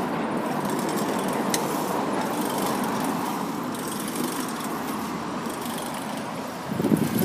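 Steady outdoor street noise of road traffic, with a louder, rougher rumble starting near the end.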